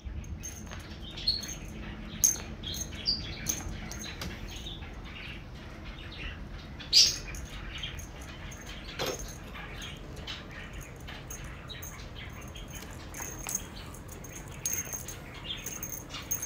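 Repeated short, high, bird-like chirps and tinkles, mixed with light taps and swishes from a feather wand toy being whipped across a rug while a kitten pounces on it. One sharper knock comes about seven seconds in.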